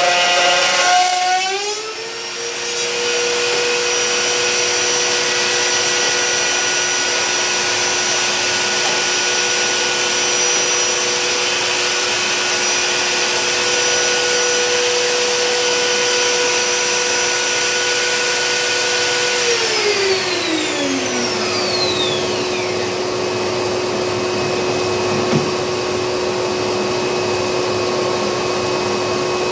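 Black & Decker plunge router with a 3/4" straight bit running at speed, its pitch dipping and recovering in the first two seconds, then holding steady until it is switched off and spins down about twenty seconds in. A dust-extraction vacuum on the router's hose runs steadily throughout.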